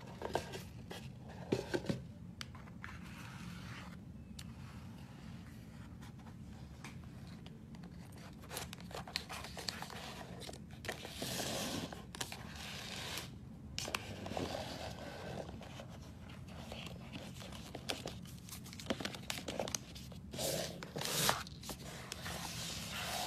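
Cardboard eyeshadow palette boxes being handled: irregular rustling, sliding and scraping of the boxes and sleeves against each other and the surface, with a few sharp taps near the start, over a steady low hum.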